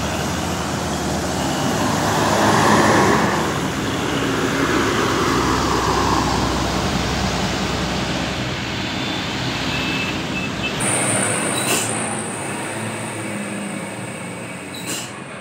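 Heavy vehicle traffic on a mountain road: a large bus passes close by, its engine and tyres swelling loud and then easing off. About two-thirds of the way through, a thin, steady high whine comes in.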